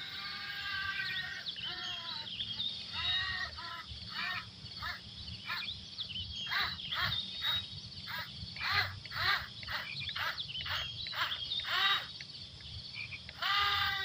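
Frogs croaking in a rapid series of short calls, about two a second, over a low steady rumble.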